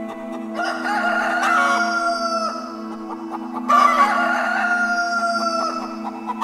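A rooster crowing twice, each crow about two seconds long and sliding down in pitch at its end, over soft background music with a steady low drone.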